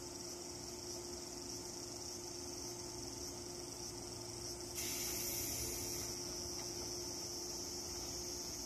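Steady chirring of crickets, with a continuous low electrical hum beneath it. About five seconds in, a louder, higher layer of the insect chorus joins.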